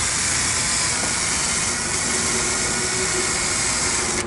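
Steady, loud hiss of rushing gas, cutting off suddenly near the end.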